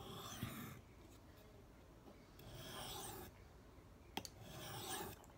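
A knife edge drawn across an abrasive sharpening surface in three rasping strokes of about a second each. There is a short click just before the last stroke.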